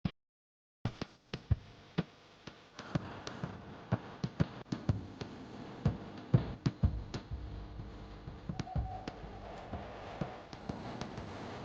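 Irregular sharp knocks and taps from hand work on wood, starting about a second in, over a faint steady background hiss.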